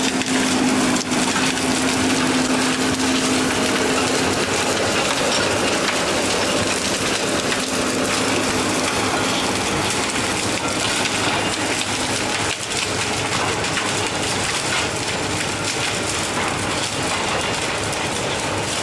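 A wood-grinding machine running under load: a dense, continuous chewing and crushing of wood over a steady engine drone. The drone fades out about twelve seconds in.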